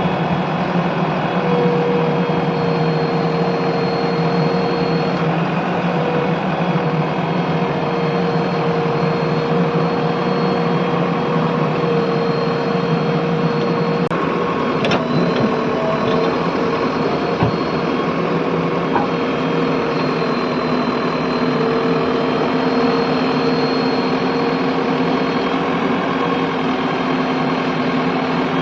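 JCB 3DX backhoe loader's diesel engine running steadily, with a couple of brief clicks about halfway through.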